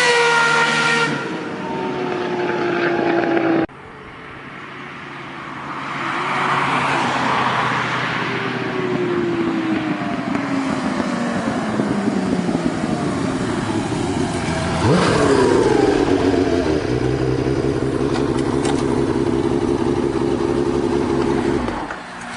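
Honda CBX 1000 inline-six motorcycle engine running, its note falling in long glides as it revs down or passes by, with an abrupt cut about four seconds in. It settles to a steady note over the last five seconds.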